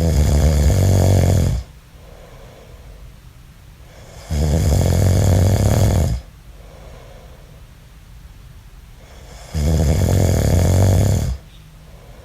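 A man snoring loudly: three long snores, each about a second and a half, coming roughly every five seconds.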